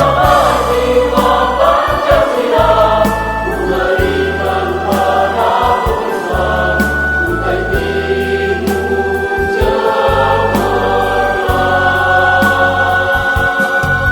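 A choir singing a hymn together, over instrumental backing that holds long, low bass notes.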